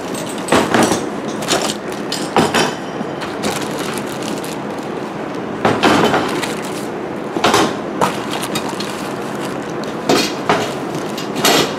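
Handling of a cardboard box and plastic-wrapped metal tubes: rustling and crinkling of cardboard and plastic wrap, broken by several sharp, irregular knocks.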